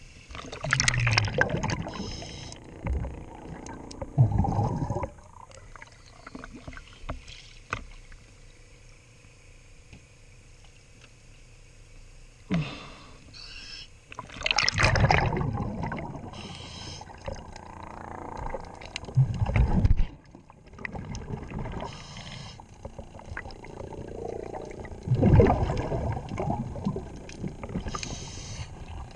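Scuba diver breathing through a regulator underwater: a hiss on each inhale, then a loud gurgling rush of exhaled bubbles, repeating about every five to ten seconds. Faint clicks and scrapes come between the breaths.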